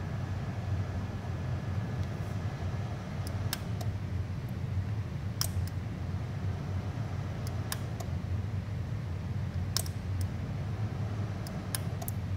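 Power switch of a UNI-T UTP305 bench power supply clicking sharply every couple of seconds as the supply is switched off and on again, over a steady low hum.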